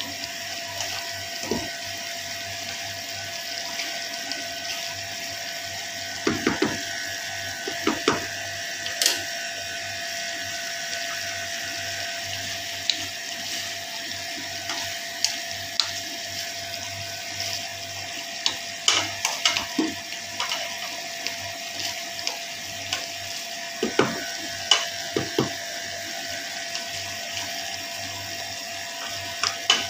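Chicken sisig simmering and sizzling in its sauce in a frying pan, a steady bubbling hiss. A wooden spatula stirs and knocks against the pan in short bursts of clicks, about six to nine seconds in, again around nineteen seconds and around twenty-four seconds, with a steady hum underneath.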